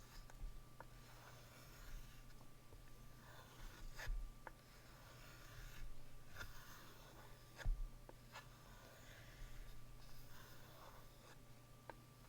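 Light, soft scraping strokes of an S35VN steel knife blade across a Shapton 1000-grit whetstone to remove the burr, with a few sharp clicks of the blade against the stone.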